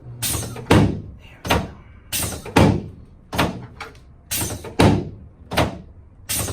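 A run of heavy thumps, about two a second, in a pattern that repeats roughly every two seconds.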